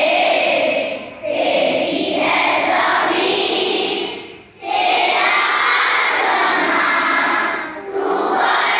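A large group of schoolchildren singing a prayer together in unison, in long phrases broken by short pauses for breath.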